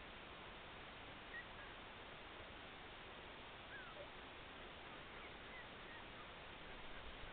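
Near silence: faint outdoor background noise with a few faint, brief high chirps scattered through it.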